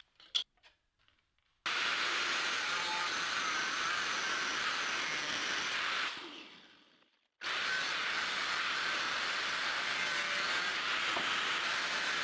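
Angle grinder cutting steel with an abrasive cut-off disc: a steady, high grinding noise that starts abruptly a couple of seconds in, fades out around the middle, then starts again and runs on.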